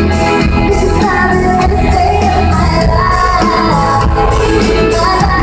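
Live pop-rock band performing at full volume: a female lead vocal singing the melody over electric guitar, acoustic guitar and a steady low beat, heard through the venue's PA from the audience.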